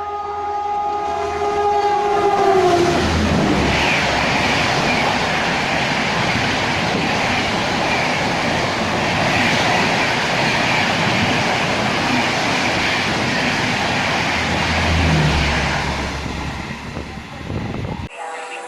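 Express train passing at speed behind an Indian Railways WAP-class electric locomotive. The locomotive's horn chord sounds at the start and drops in pitch as it goes by. It gives way to a loud, steady rush of the coaches running past, which cuts off suddenly near the end.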